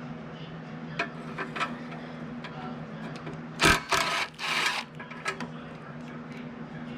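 Metal tool clicks, then about a second of loud rough ratcheting a little past the middle as a socket wrench works a 7/16 bolt.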